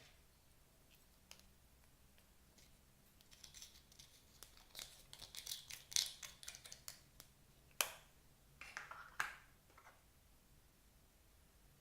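Slime being worked by hand, giving a run of irregular crackles and sharp clicks that starts a few seconds in and dies away near the end, with the two sharpest clicks close together in the middle.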